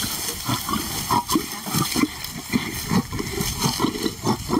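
Male lion growling in short, low, rough bursts, a few a second, while it guards a meat pile from a lioness.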